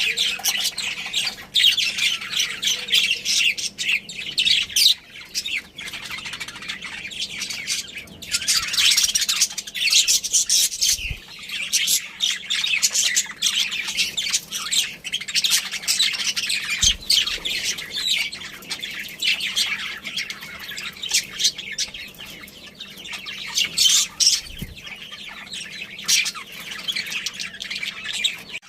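A group of budgerigars chirping and chattering continuously, fast overlapping high chirps and squawks.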